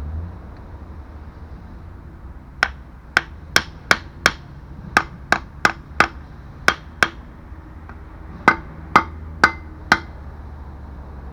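Hammer blows on metal, about fifteen sharp strikes at roughly two a second with a short pause after the first eleven: riveting new linings onto the truck's rear brake shoes.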